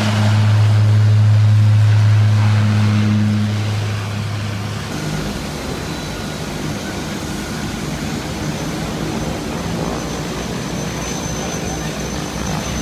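Small turboprop planes' engines running on the apron: a steady low propeller drone that cuts off abruptly about five seconds in, then a steady rush of engine noise with a faint high turbine whine.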